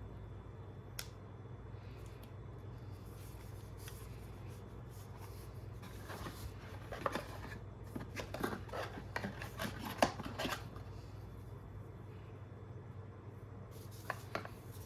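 Gaming mouse being handled: a few scattered clicks, then a dense run of clicks and rubbing for about four seconds in the middle, and two quick clicks near the end.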